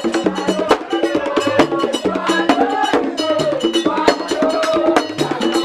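Instrumental background music with a stepping bass line, a melody and regular percussion hits with a wood-block-like click.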